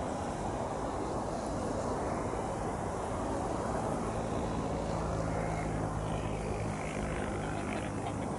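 Jet engine noise from a departing Boeing 747-400 freighter: a steady rumble, with a faint low hum coming in about halfway through.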